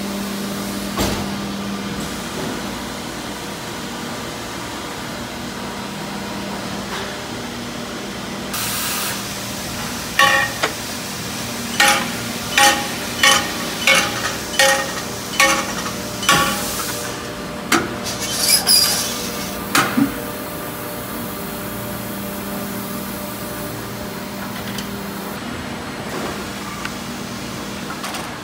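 Injection moulding machine running with a steady hum; about a third of the way in, a regular run of about ten short, sharp metallic clinks comes at roughly one and a half a second, followed by a few louder knocks and a brief hiss of air.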